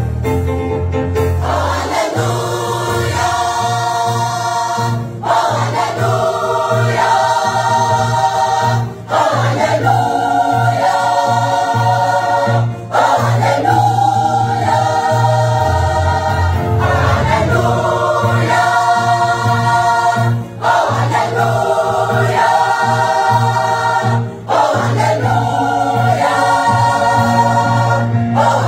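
Church choir of men's voices singing a gospel hymn, phrase after phrase, with short breaks for breath between phrases.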